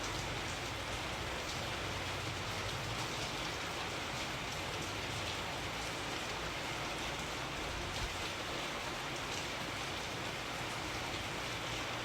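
Steady rain falling and pattering on a surface, with many small drop ticks and a single low knock about eight seconds in.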